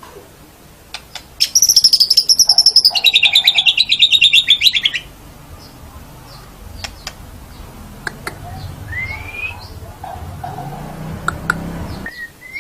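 White-rumped shama (murai batu) singing. A loud, rapid trill starts about a second and a half in, lasts about three seconds and steps down in pitch. It is followed by quieter clicks and short rising whistled notes.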